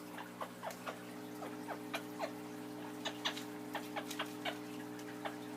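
Pet parrots chirping: a dozen or so short, irregular chirps and clicks, most sliding quickly down in pitch, over a steady low hum.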